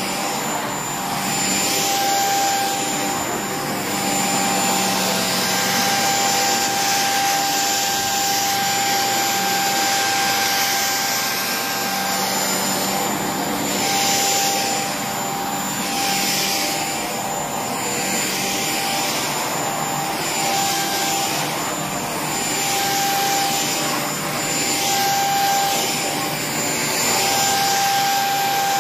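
Cordless stick vacuum running over an area rug. Its motor holds a steady whine, while the suction and brushroll hiss swells and fades with each push and pull stroke, about once every one to two seconds.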